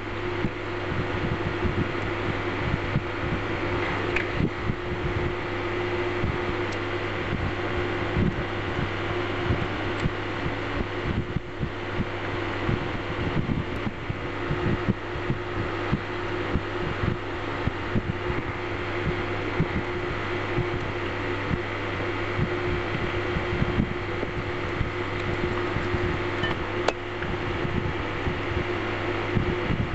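Steady fan-like mechanical hum with a constant drone and a faint high tone, under irregular soft low thumps.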